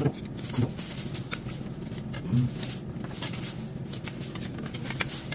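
Beef sizzling and crackling on a charcoal tabletop grill, with light clicks of metal tongs and chopsticks. A short hum of a voice about two seconds in.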